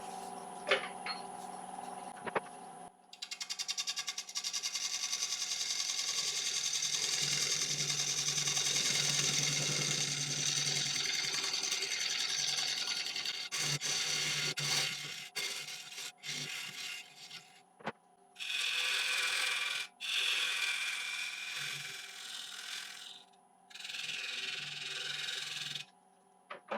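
Wood lathe running with a steady hum while a turning tool cuts a tenon into a spinning ash blank: a long continuous scraping hiss of the cut, then three shorter separate cuts near the end, with a few sharp taps at the start.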